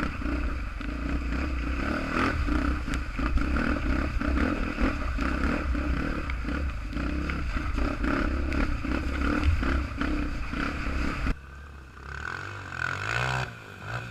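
Single-cylinder four-stroke trail motorcycle engine running under load, with frequent knocks and rattles over the rough ground. The sound cuts off abruptly about eleven seconds in, leaving a quieter engine whose pitch rises and falls briefly near the end.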